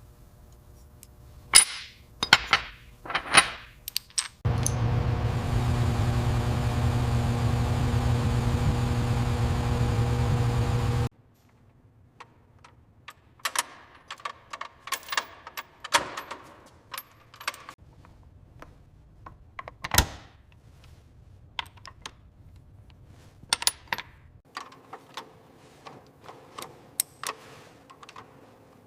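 Workshop tool sounds: sharp metallic clinks and knocks of parts and hand tools. A motorised tool runs steadily for about six seconds, then cuts off suddenly, and scattered clinks follow.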